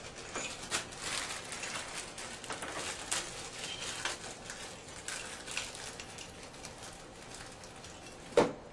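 Small metal shower-trim parts being handled and fitted by hand: a busy run of light clicks and scrapes that thins out after about six seconds, then one sharp knock near the end.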